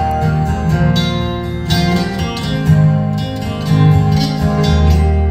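Two acoustic guitars playing an instrumental passage of a folk song, picked and strummed together with a steady low bass line.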